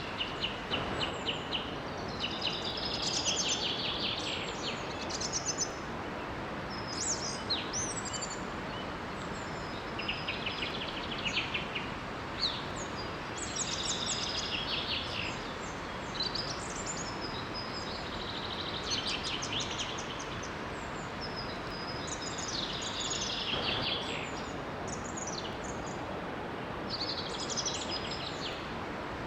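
Songbirds singing short phrases every few seconds over the steady rush of a small waterfall.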